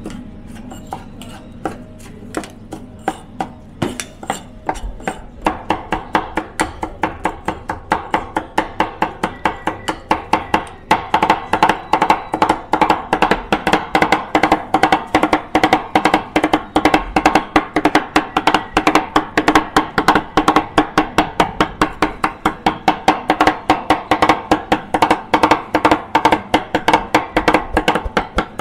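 Two steel cleavers chopping grilled kokoreç on a wooden board in a fast drumming rhythm. The strikes are sparse at first, then pick up and get louder about five seconds in, and settle into several strikes a second from about eleven seconds.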